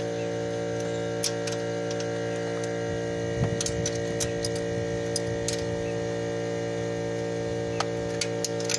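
Steady electrical mains hum, with a few faint, irregular sharp clicks and a brief soft handling sound about three and a half seconds in.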